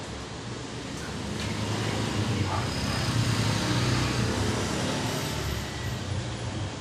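A motor vehicle passing by: a low engine rumble that swells to its loudest about three to four seconds in, then fades.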